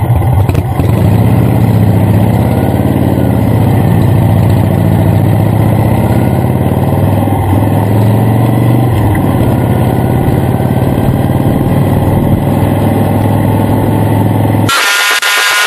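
Harley-Davidson Shovelhead air-cooled V-twin engine running steadily as the bobber is ridden, its pitch rising and falling slightly with the throttle. Near the end the engine sound cuts off abruptly and a different, broken-up sound takes over.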